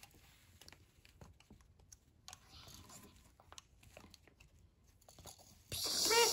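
Faint clicks and rustles of plastic toy syringes being handled and pressed against a plush toy dog. Near the end a voice begins, rising and falling in pitch.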